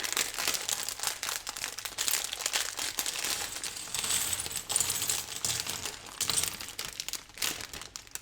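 A thin plastic parts bag crinkling, with small plastic LEGO bricks clicking and clattering against each other as they are handled and sorted. The sound is a dense, continuous crackle that thins out near the end.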